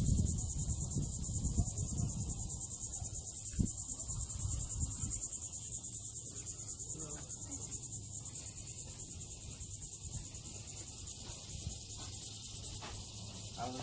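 Steady, high-pitched insect chorus with a fast, even pulse, of the cricket kind. Low rumbling and a single knock sound in the first few seconds.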